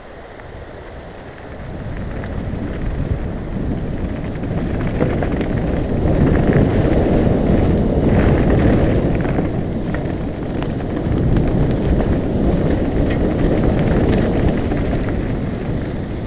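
Mountain bike rolling fast down a rocky dirt trail: wind rushing over the microphone with the tyres crunching over stones and the bike rattling and knocking. It grows louder after about two seconds.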